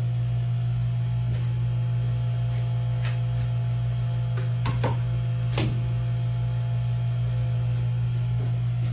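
Steady, loud electric hum of the clamp's running pump, with a few light clicks and taps as the router's depth setting is adjusted by hand.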